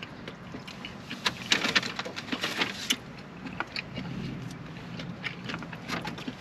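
Food wrappers and packets crinkling and rustling in a car's cabin, with a dense run of sharp crackles between about one and three seconds in, over a steady low hum.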